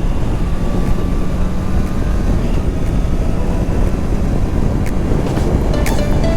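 Honda CBR650R's inline-four engine running at steady cruising revs, mixed with wind rushing over the microphone. The engine is in its break-in period and is being ridden gently in high gears.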